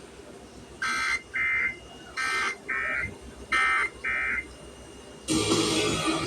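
Emergency Alert System SAME digital data bursts: six short buzzing, warbling squawks in three pairs about a second apart, the coded end-of-message signal that closes the flash flood warning. About five seconds in, music starts.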